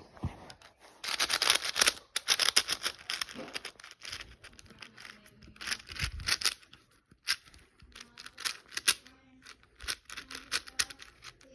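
A plastic 4x4 speedcube being turned by hand: quick runs of rattling clicks as the layers snap round, thickest in the first few seconds, then shorter scattered bursts of turns.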